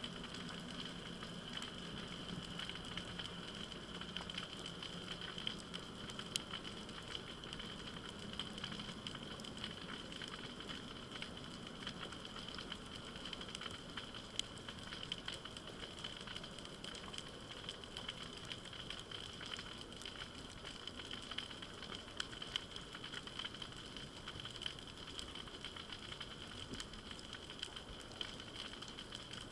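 Underwater reef ambience: a dense, continuous crackle of tiny clicks of the kind snapping shrimp make on rocky reefs, with a steady faint high-pitched whine underneath.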